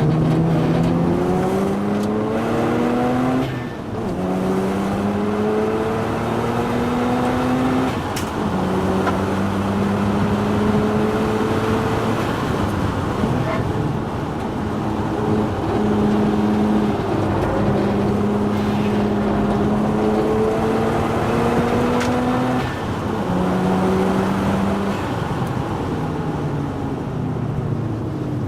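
Mazda RX-7's twin-rotor rotary engine pulling hard on a circuit, its pitch climbing through the gears with a drop at each shift, about 3.5 and 8 seconds in. It then holds a fairly steady high pitch, easing and rising again a few times.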